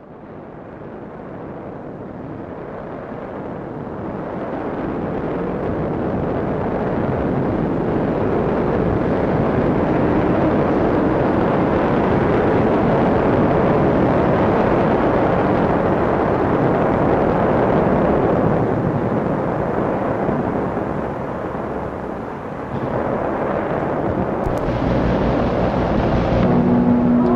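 A dense, rumbling wash of noise, the intro of an ambient drone track, swelling up slowly and then holding steady. It dips briefly about two-thirds of the way through and swells again. Near the end, sustained pitched notes enter on top of it.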